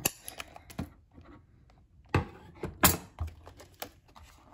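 Cardboard packaging being handled: a scatter of sharp taps and knocks as a cardboard box insert holding a die-cast toy car is pulled out and turned, the loudest two about halfway through.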